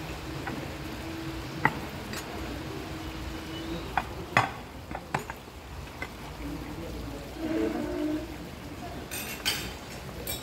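Plates, glassware and cutlery being handled on a restaurant table: several sharp clinks and knocks scattered through, with a cluster near the end, over a steady low hum of room noise.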